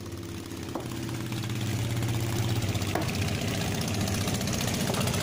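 Boat engine idling with a steady hum that grows louder over the first couple of seconds and then holds, with two light knocks about a second and three seconds in.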